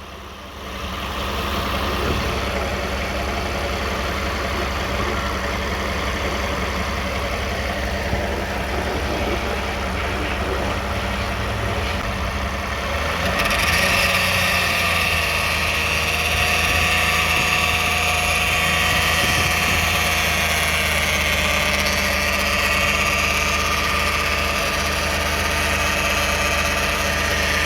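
A 2009 Toyota Sienna's V6 engine running at idle with the transmission buzz still present. The flex plate bolts have been found tight, so the owner suspects the torque converter or transmission pump. About halfway through, the sound gets louder and a higher-pitched buzz comes in.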